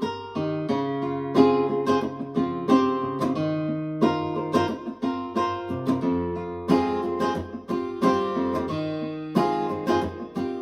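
Acoustic guitar music with plucked and strummed chords, played back through a KEF iQ1 bookshelf speaker.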